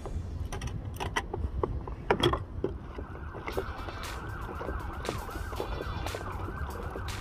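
A spinning reel being cranked to retrieve line: from about three seconds in, a whirring whine that rises and falls with each turn of the handle. Before that come a few sharp knocks and clicks, the loudest just after two seconds, with a low wind rumble on the microphone underneath.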